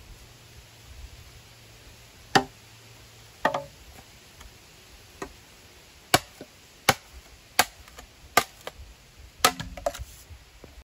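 Machete chopping into a green bamboo pole: sharp, separate strikes, two in the first half, then a run of about one every three-quarters of a second from about six seconds in, ending in a quick cluster of hits.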